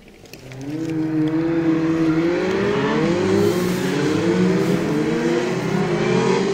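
Snowmobile engine coming in about half a second in and revving, its pitch climbing in several rising sweeps.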